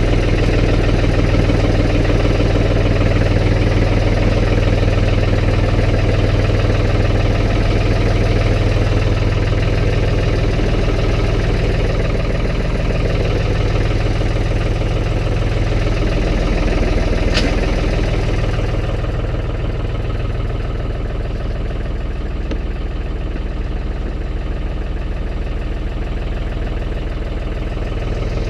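Engine of a snow-plowing vehicle running steadily. A single sharp click comes about 17 seconds in, and the engine then sounds a little quieter and duller.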